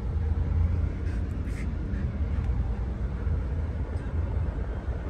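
Steady low rumble of a car and street traffic, heard from inside the car's cabin.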